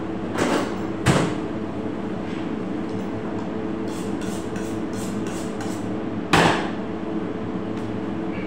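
A chef's knife is honed on a sharpening steel in a quick run of about six light strokes, with three loud knocks as the tools are picked up and set down. A steady machine hum runs underneath.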